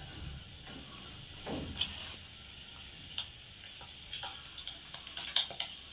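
Sun-dried raw chickpeas deep-frying in hot oil: a steady sizzle with scattered sharp pops as the chickpeas crack open.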